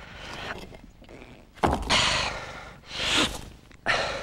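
A man's heavy, strained breathing: several loud gasping exhales a second or so apart, three of them strong, with a short grunt of voice at the start of some.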